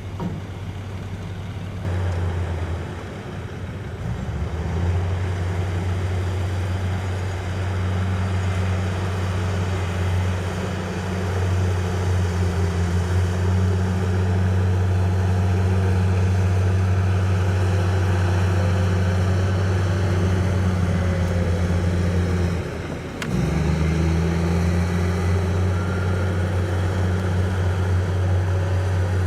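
Heavy diesel construction machinery engine running: a steady low drone that builds up over the first several seconds, dips briefly about 23 seconds in, then picks straight back up.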